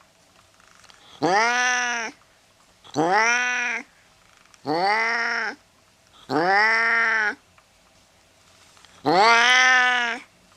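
Domestic cat yowling angrily: five drawn-out calls of about a second each, every one rising then falling in pitch, with short pauses between.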